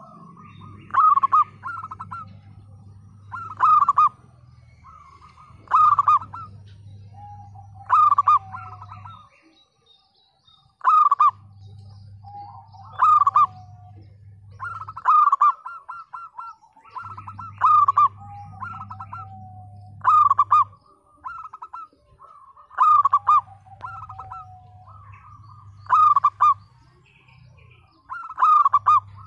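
Zebra dove (perkutut) cooing: a loud, rapid, stuttering burst of notes repeated about every two and a half seconds, around a dozen times.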